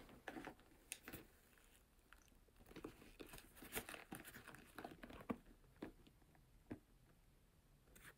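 Faint handling noises as a used sneaker is picked up and looked over: scattered crinkles, rustles and soft taps, busiest in the middle, with a few single taps toward the end.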